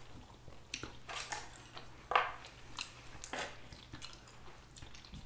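Close-miked chewing of sushi and fried stuffed jalapeno: irregular wet mouth clicks and smacks, a few each second.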